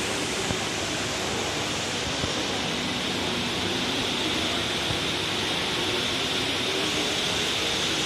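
Indoor waterfall: water falling down a tall, multi-storey wall makes a steady rushing hiss, growing slightly louder near the end.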